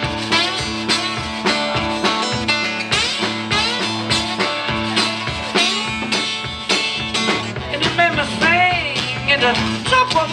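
Live blues music: an acoustic guitar strummed over a drum-kit groove, with sliding melodic notes coming in near the end.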